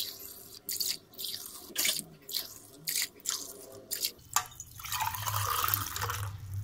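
Water poured from a steel tumbler into a pressure cooker pot: several short splashes, then a longer, steady pour in the last couple of seconds.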